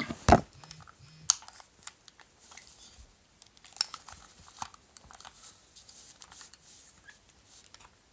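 Scattered light clicks and taps with faint rustling: a dart's barrel being handled and fitted into the nose of a hand rivet gun.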